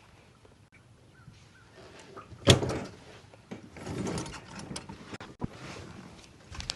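A sharp knock, followed by a few seconds of clicking, knocking and rattling of hard parts being handled.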